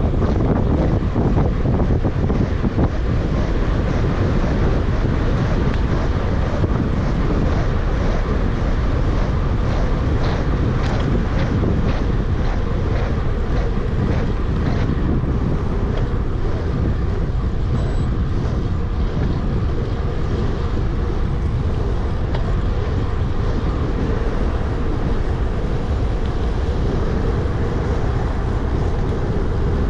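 Steady wind rush buffeting the microphone of a camera carried on a moving bicycle, with a few faint clicks about a third of the way in.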